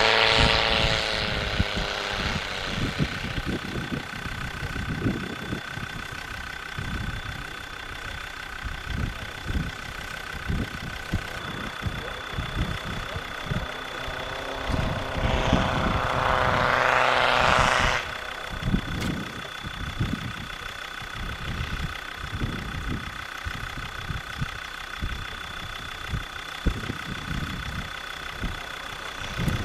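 Land Rover Discovery Td5's five-cylinder turbodiesel engine working hard as the truck ploughs through deep snow, revving up loudest right at the start and again about 15 to 18 seconds in. A steady high whine runs under the engine, with irregular low thumps.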